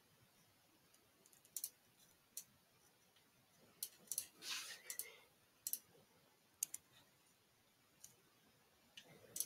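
Faint, scattered clicks of a computer mouse and keyboard, about eight separate sharp clicks, with a short rustle about four and a half seconds in.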